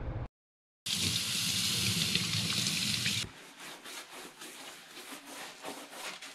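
Water running steadily from a tap for about two seconds, then a grout sponge wiped over ceramic floor tiles, faint irregular rubbing strokes.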